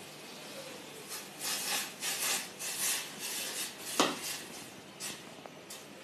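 A cooking utensil rubbing and scraping in a pot as oats are added and stirred, in a series of short rasping strokes, with a sharp knock about four seconds in.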